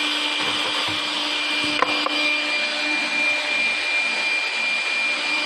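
Cardboard hole-drilling machine running: a steady high whine over a hiss, with a sharp click a little under two seconds in and a fainter one just after.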